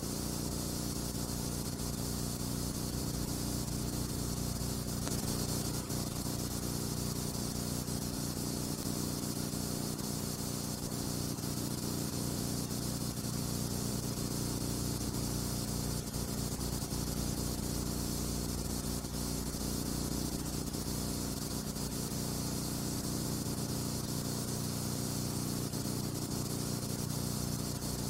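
Steady hiss with a low, even hum and no other sound: the background noise of a silent film's transfer, which has no soundtrack.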